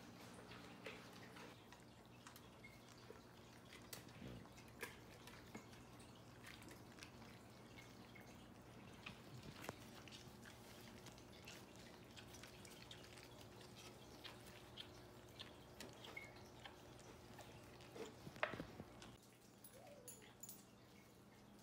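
Faint wet lapping and smacking of Golden Retriever puppies eating from a shared feeding dish: many small irregular clicks over a steady low hum.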